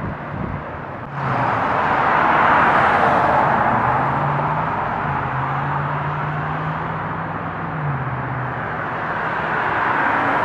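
Street traffic: cars passing, a steady rush of tyre and engine noise that swells about a second in, with a low engine hum underneath through the middle.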